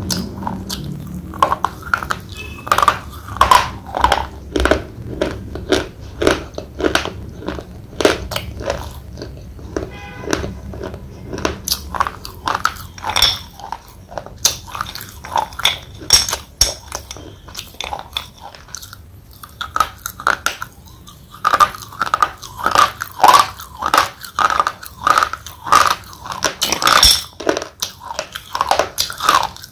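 A thick slate pencil being bitten and chewed: repeated sharp, crisp crunches as the chalky stone snaps and breaks between the teeth, with a short pause about two-thirds of the way through.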